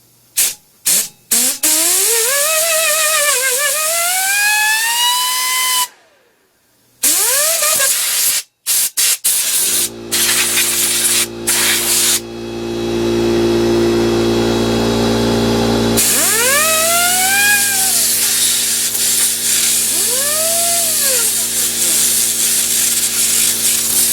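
Compressed air blown into a desktop computer's case to clear out dust: a few short hissing bursts, then long blasts with a short break. Under the hiss of several blasts a whistling tone glides up and down.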